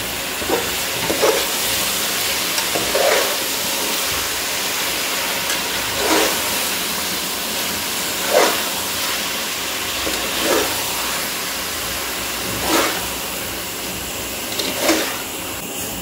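Steady sizzle of meat, tomato and herbs frying in an aluminium pressure cooker, with a spatula scraping through the pot in short strokes about every two seconds as the food is stirred.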